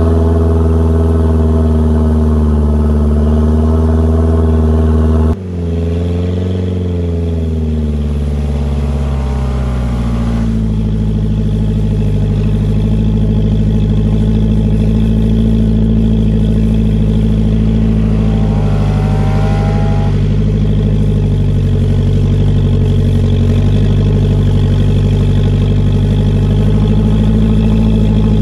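Off-road pickup truck engines running while driving through deep snow. A steady engine drone cuts off sharply about five seconds in, and a second engine takes over. That engine, on an old Toyota pickup crawling through deep snow, revs up and down about seven to ten seconds in and again near twenty seconds, then settles to a steady pull.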